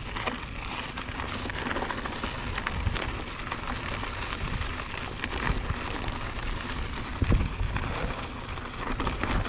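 Mountain bike rolling over rough, gravelly desert dirt trail: a steady crunching hiss from the tyres, with scattered clicks and rattles and a louder bump about seven seconds in.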